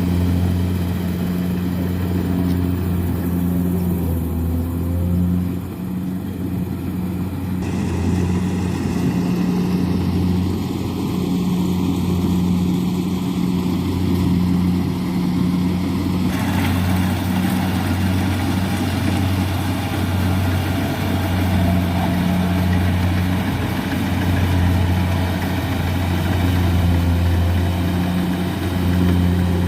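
Kubota combine harvester's diesel engine running steadily, a continuous low drone with machinery noise over it.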